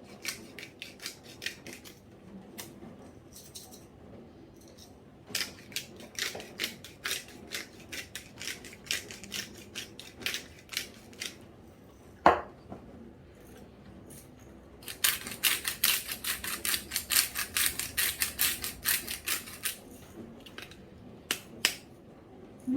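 Hand-turned pepper and salt grinders giving off a rapid gritty clicking as the seasoning is ground over the dish, in two long spells. A single sharp knock comes between them.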